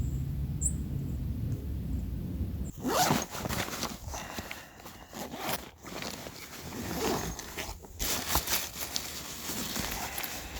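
A zipper being worked in a run of short pulls with pauses between them, starting about three seconds in, after a low rumble.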